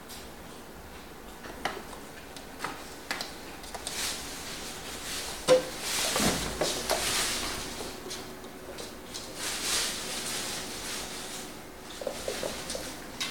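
A kitten scampering and pouncing on a hard tiled floor: scattered light taps and scrabbling of paws, a sharp knock about five seconds in, and stretches of rustling in the middle.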